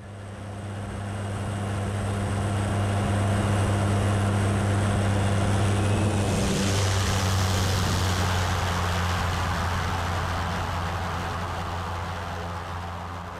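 Pilatus Porter's engine and propeller running with a steady low drone, fading in over the first couple of seconds. A louder hiss joins about six seconds in, and the sound fades near the end.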